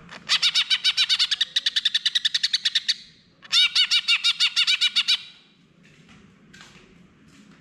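Cucak hijau (green leafbird) singing: two fast runs of quickly repeated ringing notes, about ten a second, the first nearly three seconds long and the second about a second and a half, followed by a few soft scattered calls.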